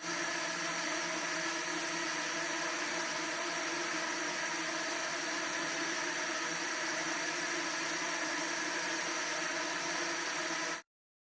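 Swarm of nano quadrotors flying together, their many small rotors making a steady whirring buzz with several held tones. It cuts off suddenly near the end.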